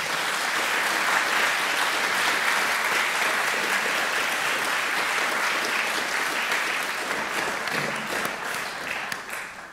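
Audience applauding steadily at the end of a lecture, dying away near the end.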